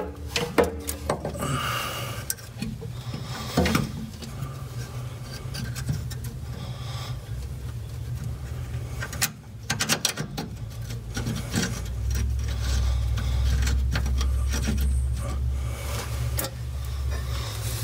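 Socket ratchet clicking and rasping in short runs as the steering damper and tie rod bolts are snugged up loosely. A steady low hum runs underneath and grows louder in the second half.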